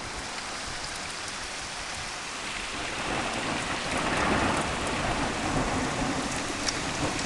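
Steady rain with thunder from a close lightning strike rumbling in about three seconds in, swelling to its loudest around four seconds and then rolling on.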